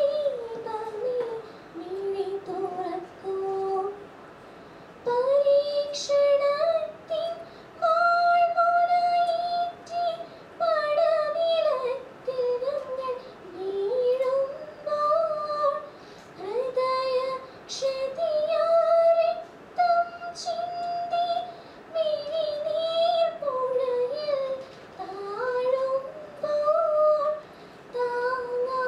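A woman singing a prayer song in one voice, in phrases of a few seconds with short breaths between them, her pitch sliding from note to note.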